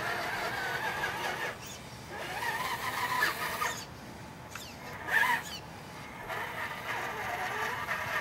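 Tamiya CC01 radio-controlled Wrangler's electric motor and gears whining as it crawls over a dirt mound. The pitch rises and falls with the throttle, and the whine drops away for moments in between.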